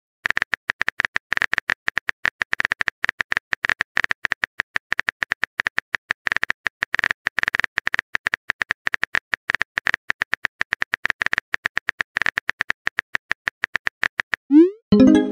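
Keyboard-click sound effects of a texting-story chat app, a quick tick for each letter typed, several a second. Near the end a short rising sweep and a louder pitched blip: the app's message-sent sound.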